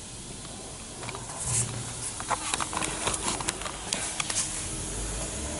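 Scattered light clicks and knocks over a faint low hum, starting about a second and a half in.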